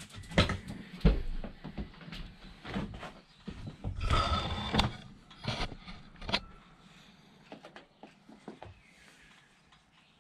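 Hand tools and a plastic tool case being handled: a run of sharp clicks and knocks, with a longer rattle about four seconds in, then only a few scattered clicks after about seven seconds.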